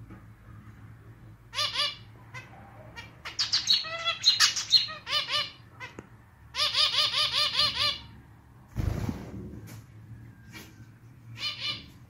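Male zebra finch singing its song in several bursts of nasal, clarinet-like, slightly off-key notes. A short low thump comes about nine seconds in, over a faint steady low hum.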